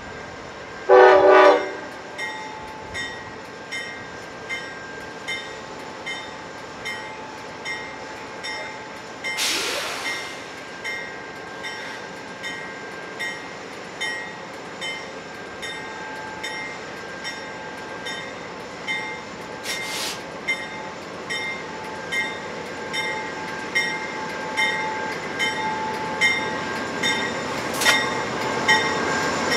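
A locomotive horn sounds one short blast, then a bell rings steadily about once every three-quarters of a second as the train draws closer, growing slowly louder. A brief whoosh passes about ten seconds in.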